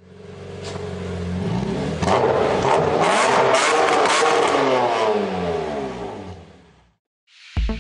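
Car engine revving as an intro sound effect, fading in, loudest in the middle with a few sharp cracks, then fading away.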